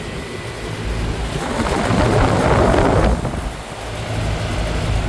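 3.5-ton Bryant 561CP air conditioner condensing unit running with its coil frozen up: a steady low hum of compressor and condenser fan. A louder rush of fan-driven air swells for about two seconds in the middle.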